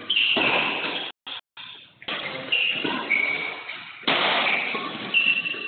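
Badminton rally in an echoing hall: several sharp hits, each trailing off in reverberation, with short high squeaks in between. The sound cuts out briefly about a second in.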